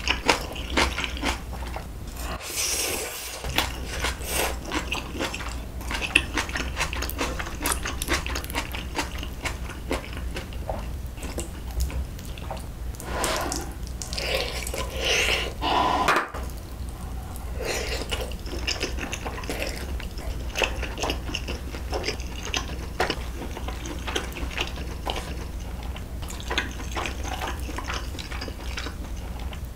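Close-miked wet chewing and biting on spicy braised beef short ribs (galbi-jjim), with chopsticks clicking against the dishes. There is a louder stretch of chewing about halfway through, and a steady low hum underneath.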